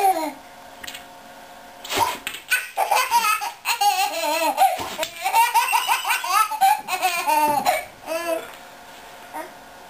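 Toddler laughing in high-pitched fits from about two seconds in until near the end, with short breaks between the bursts.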